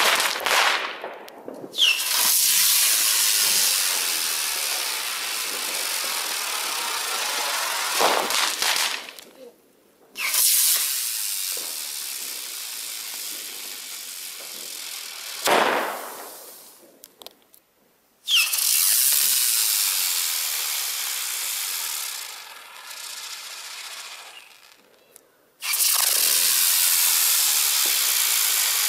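Small 16 mm butterfly fireworks launching one after another, each a long hissing rush of burning composition that fades over several seconds. A few sharp pops come in between, near the start and twice later on.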